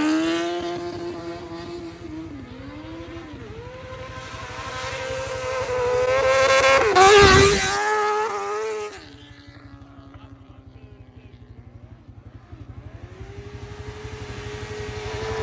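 Motorcycle engines passing by one after another, revving, their pitch rising and then dropping as each goes past. The loudest pass and rev come about seven seconds in. After that the sound is quieter until another engine builds near the end and falls in pitch as it passes.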